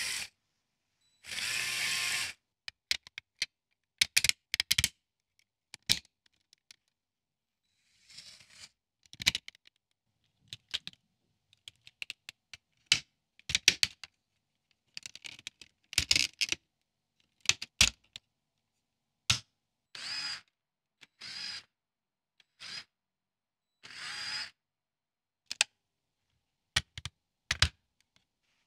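Small Lego Technic electric motors running in short whirring bursts of about a second each, driving a turntable and gears. Between the bursts come many sharp clicks and knocks of Lego parts being handled and snapped together.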